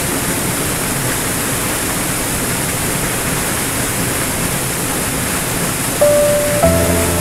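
Small waterfall splashing over rocks into a pool, a steady rush of falling water. About six seconds in, piano notes come in over it, followed by a fuller chord with a low bass note.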